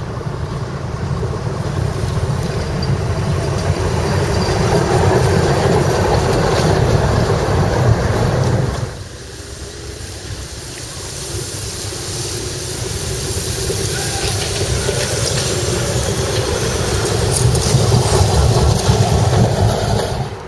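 Electric tram running past on its rails, a rumbling noise that grows louder over several seconds, then stops abruptly about nine seconds in. A second tram's running noise then builds again and cuts off sharply near the end.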